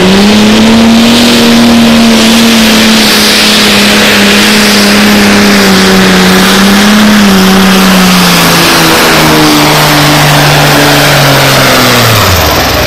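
Turbocharged super stock diesel pulling tractor running flat out as it drags a weight-transfer sled, one loud sustained engine note. Over the last few seconds the pitch falls steadily as the engine lugs down under the growing load of the sled near the end of the pull.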